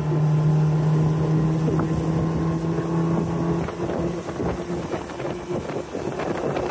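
Boat motor running steadily under way. Its tone drops out about three and a half seconds in, leaving wind buffeting the microphone.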